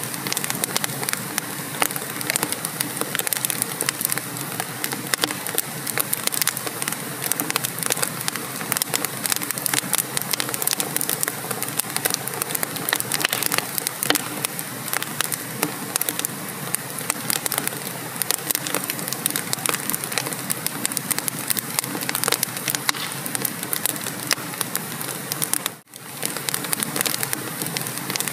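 Wood fire crackling and popping in a fireplace: a steady, dense patter of small pops over a soft hiss, briefly cutting out about 26 seconds in.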